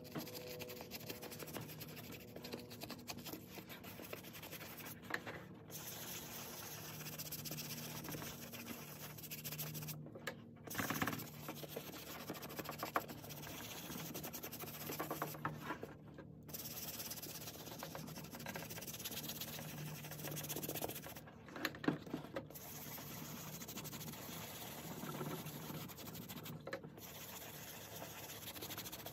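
Small bristle brush scrubbing a foamy suede shampoo into wet suede leather, a steady scratchy rubbing with a few brief breaks.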